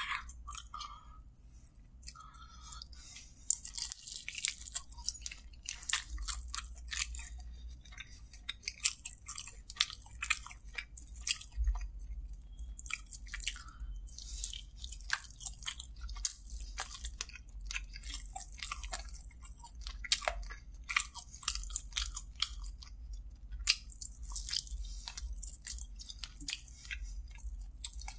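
A person chewing and biting into a sauced chicken drumstick close to the microphone: many quick, irregular clicks and crackles of mouth and meat, over a steady low hum.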